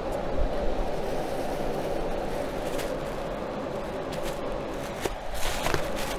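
Steel inline duct extraction fan running with a steady hum and rush of air drawn through a flexible aluminium duct, with a few light taps and rustles as a card is held at the duct's open end.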